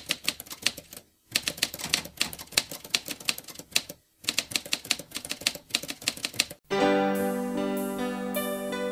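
Typewriter sound effect: a rapid run of key strikes with two short pauses, as a title is typed out. About two-thirds of the way through the clacking stops and music begins with sustained keyboard chords.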